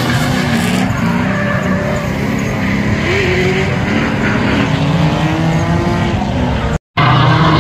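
Two drift cars, Mazda RX-8s, sliding in tandem: their engines rev up and down while the tyres squeal. The sound drops out for an instant about seven seconds in.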